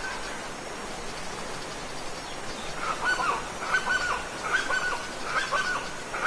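Steady rushing of a waterfall, with a bird calling about halfway in, five short repeated calls a little under a second apart.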